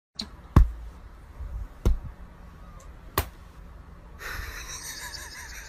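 Three soft thumps and taps about a second and a half apart: hands patting down on a soft bed cover.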